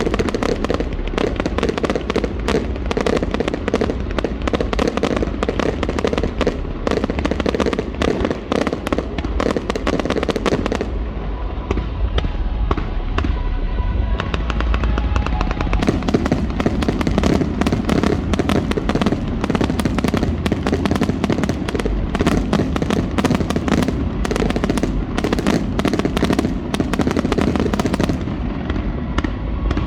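Fireworks display: a rapid, continuous barrage of bangs and crackles, easing off for a few seconds near the middle, then building again into a dense run of explosions.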